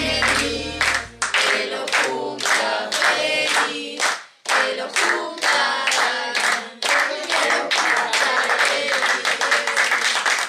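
A small group of people singing together while clapping in time. The backing music with its bass line stops about a second and a half in, leaving the voices and claps.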